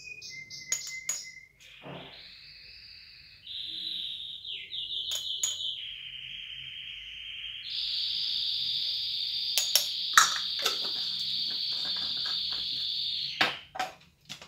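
A songbird singing a long song of sustained high trills that shift in pitch every few seconds and stop shortly before the end. Over it come a few sharp clicks and taps from spice jars being shaken over the tagine.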